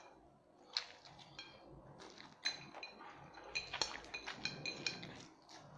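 Noodles being slurped and chewed, with many small clicks and clinks of chopsticks against a plate, coming thicker from about halfway through.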